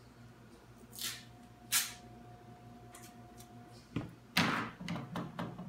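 Two short rips of tape being pulled off a roll, then a sharp knock and a burst of rustling and quick clicks as tape and tools are handled on the laminate countertop.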